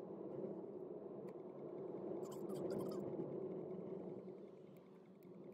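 Steady road and engine noise inside a moving car's cabin, with a few faint clicks about two seconds in.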